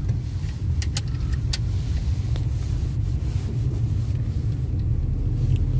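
Car driving, heard from inside the cabin: a steady low rumble of engine and road noise, with a few light clicks in the first half.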